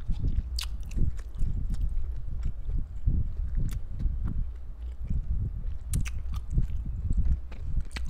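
Close-miked chewing of a mouthful of barbecued pork: a steady rhythm of soft low thuds, about two to three a second, with scattered wet mouth clicks and smacks.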